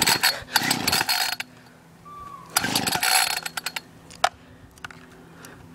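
Recoil pull starter of a Homelite string trimmer yanked twice, each pull a short rattling whir, with the choke on. The engine does not catch and run.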